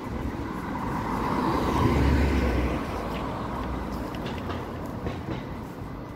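A motor vehicle driving past, its engine rumble and tyre noise swelling to a peak about two seconds in and then slowly fading.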